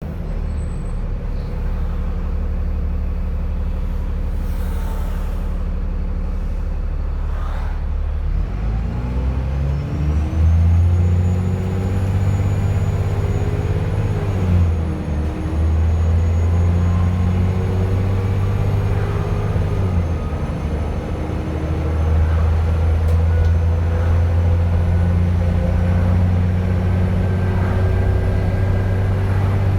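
Dennis Trident 2 double-decker bus engine idling, then pulling away about eight seconds in and climbing through the gears, dropping at each change. A high turbo whistle rises above the engine and dips with each gear change.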